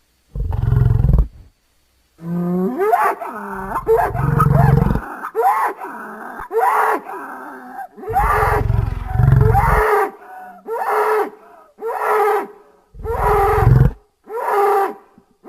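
Layered bellows, grunts and roars made from buffalo, bison, bull and aurochs recordings, used as the voice of an extinct giant buffalo. A string of repeated calls, several with a deep rumbling undertone, comes at about one call a second in the second half.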